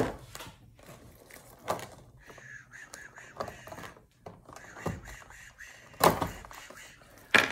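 Handling and opening a cardboard-and-plastic action-figure box with a key: a series of knocks and thumps about every second and a half, with scraping between them as the key works at the packaging.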